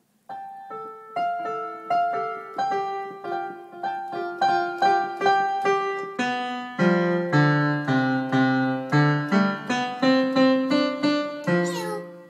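Piano keys pressed by a young child, a few separate notes a second in no set tune. The notes are higher at first, and from about halfway through deeper notes are added and the playing gets louder.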